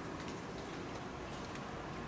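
Steady outdoor background noise with a few faint light ticks and one brief, very high chirp about a second in.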